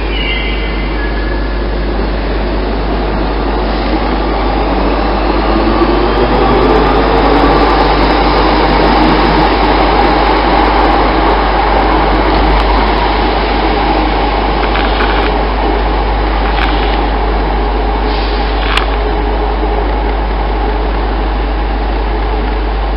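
Class 314 electric multiple unit pulling away: the traction motor whine rises in pitch as the train gathers speed, then settles into a steady running note over the noise of the train. A few faint clicks come in the second half.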